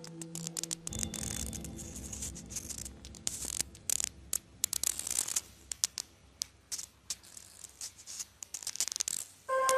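Rustling and crackling of flowers being pushed into barbed wire, with many small irregular clicks and scratches.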